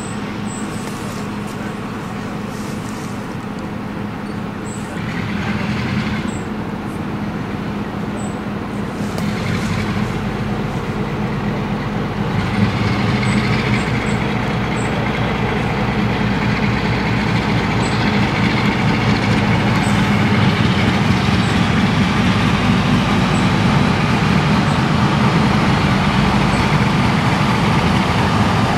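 Railway locomotive running with a steady low hum, growing louder through the second half as it draws near.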